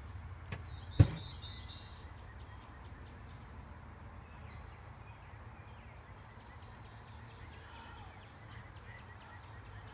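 Small birds chirping in short high calls over a steady low rumble, with one sharp knock about a second in.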